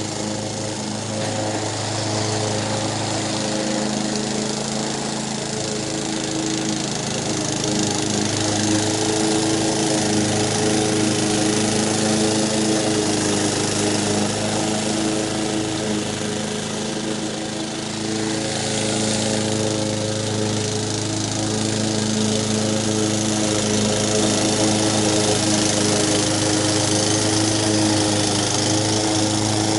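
Honda HR194 push mower's engine running steadily while it cuts grass, now staying running after a carburetor blockage was cleared.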